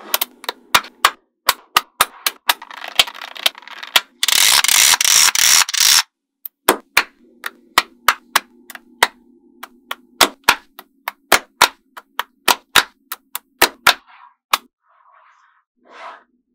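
Small neodymium magnetic balls clicking sharply together as blocks of them are snapped into place, many separate clicks in an uneven run. About four seconds in comes a loud, rapid rattle of balls lasting about two seconds.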